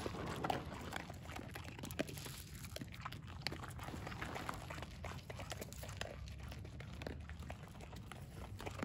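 Two dogs eating dry kibble: irregular crisp crunching and chewing, several crunches a second.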